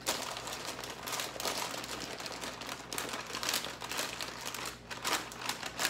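Parchment paper crinkling in irregular rustles as it is folded up by hand and closed like a shopping bag into a baking packet.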